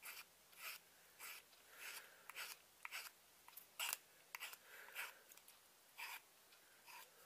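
Small hand file scraping across the end of a knife handle scale with a blue liner, truing it where it will meet the bolster. About a dozen short, faint strokes, roughly one every half second, with a brief pause near the end.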